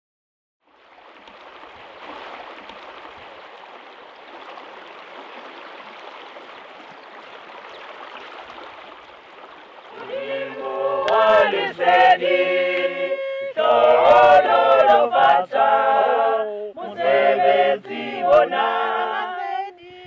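Steady rush of flowing stream water, then from about ten seconds in a small mixed choir of men and women sings a cappella, in phrases broken by short pauses.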